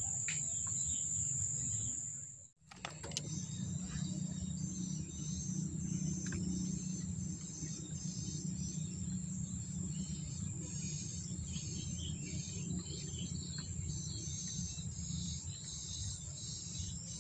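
Night insects such as crickets chirring: a steady high trill with a pulsing chorus beneath it, over a steady low hum. The sound cuts out briefly about two and a half seconds in.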